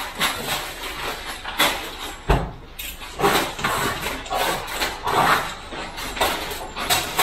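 Irregular knocks and clatter of kitchen cabinet installation work, with a heavy low thump about two seconds in.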